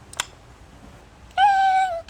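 A single click, then about 1.4 s in a loud, high meow-like call held at one pitch for about half a second.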